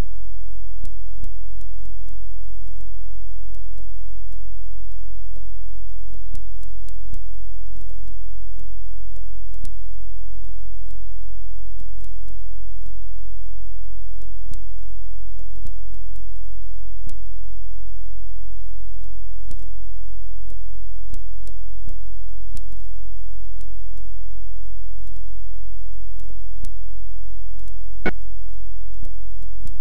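Loud, steady low electrical hum, like mains hum on a tape transfer, with faint higher steady tones above it. Faint scattered clicks run through it, and one sharper click comes near the end.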